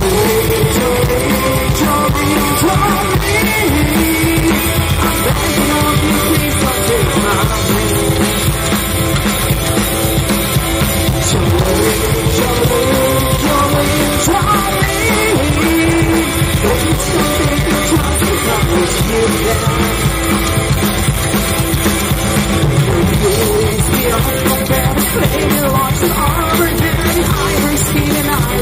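Live rock-and-roll band playing loudly through a PA: upright bass, drum kit and electric guitar, with a woman's voice singing.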